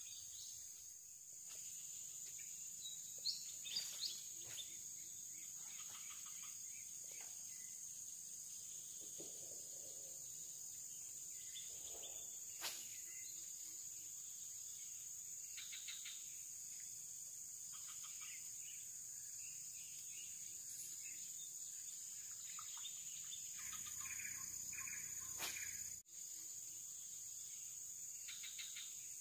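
Insect chorus, a steady high-pitched drone. A few sharp clicks come through it: three about three to four seconds in, one about halfway, and one near the end.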